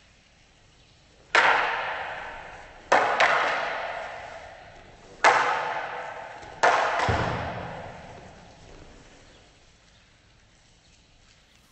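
Wooden jo staff and wooden bokken sword clacking together in five sharp strikes, two of them in quick succession, each ringing out through a reverberant hall.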